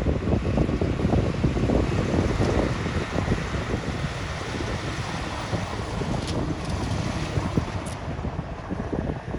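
Low rumble of heavy earthmoving machinery at work, mixed with wind buffeting the microphone in irregular gusts.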